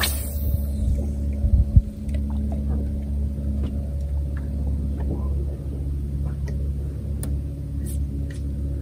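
Steady low hum of the flats boat's electric trolling motor running at slow speed, with a single thump a little under two seconds in and a few faint clicks.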